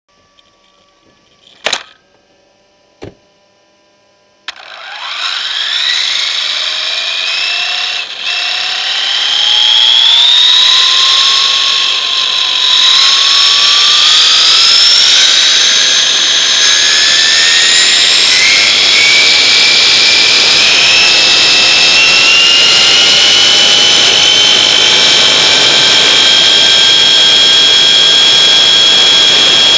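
Electric RC truck on a 2S LiPo battery, its motor and drivetrain whining as it accelerates up to about 70 km/h: a high-pitched whine climbs steadily in pitch, dips briefly, climbs again, then holds level at top speed over the rush of wind and tyres on pavement. Two sharp clicks come before it sets off.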